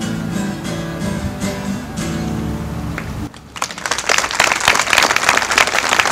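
A children's choir song with acoustic guitar accompaniment ends about three seconds in. Then the audience applauds, louder than the music.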